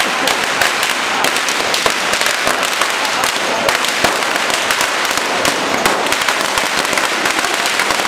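A long string of Chinese firecrackers going off in a dense, unbroken rapid crackle of sharp bangs.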